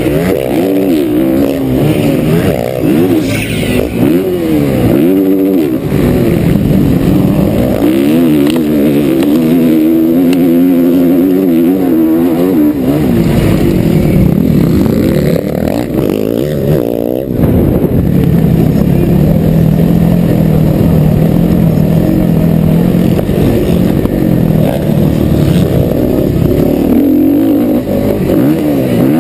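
Motocross bike engine heard on board from the rider's camera, revving hard and easing off again and again as the rider works the throttle and gears around the track, with a brief throttle cut about two-thirds of the way through.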